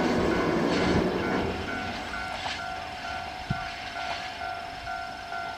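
Freight train wagons rumbling past and fading away after about a second and a half. A level crossing warning bell keeps ringing in a steady repeating pattern.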